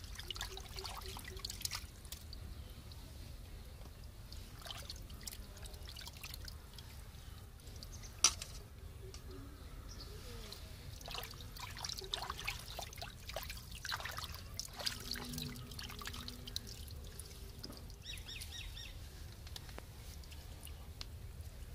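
Muddy water splashing and dripping as live bami eels are caught by hand from a small waterlogged pit and put into a steel plate: scattered small splashes and drips, with one sharper click about eight seconds in.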